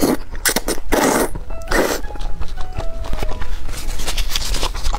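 A person slurping thick noodles in spicy sauce, with two long wet slurps about one and two seconds in and smaller mouth clicks of chewing between, over background music with short melodic notes.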